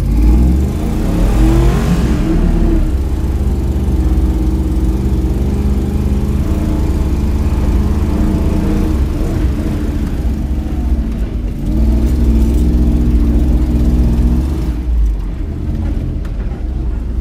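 Jeep Wrangler YJ's engine, heard from inside the cab, pulling the Jeep along an off-road trail. It revs up about a second in, holds steady, eases off briefly around eleven seconds, then picks up again.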